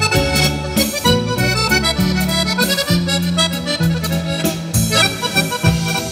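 Piano accordion playing a waltz melody live with a band, backed by drum kit, electric guitar, keyboard and a steady bass line.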